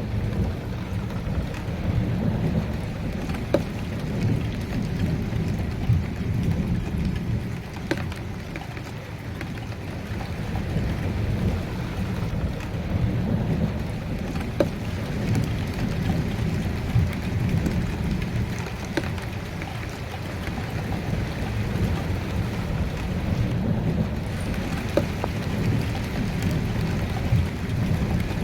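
Steady rain falling, with scattered sharp drop hits, over a low rolling rumble of thunder that slowly swells and eases.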